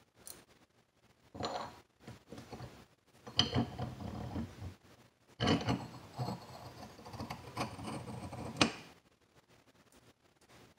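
Steel parts being handled: a tapered roller bearing and sleeve slid along the pinion shaft of a Volvo AWD angle gear, scraping and clinking metal on metal in a few bursts, with a sharp click near the end.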